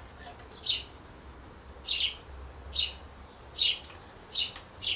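A small bird chirping: short, high, falling chirps repeated about once a second.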